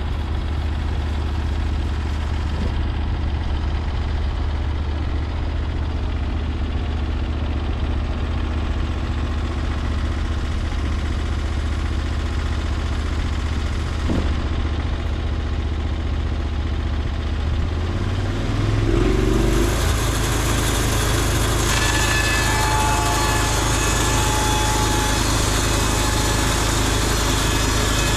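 Band sawmill's gas engine idling steadily, then revving up about two-thirds of the way through and running on faster with a loud, steady hiss over it.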